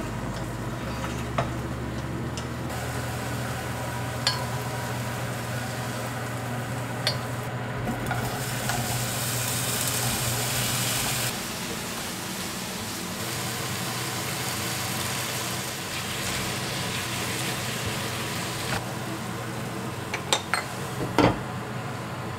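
Egg and sliced luffa sizzling in a non-stick frying pan, stirred with chopsticks and a spatula that tap the pan now and then; the sizzle grows louder for a few seconds in the middle. Near the end come a few sharp knocks as the glass lid goes on the pan.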